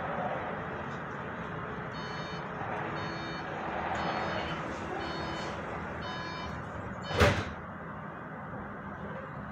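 Tram door-warning beeps sound in short repeated tones for several seconds. About seven seconds in, the doors shut with a loud thud, over the steady hum inside the stationary tram.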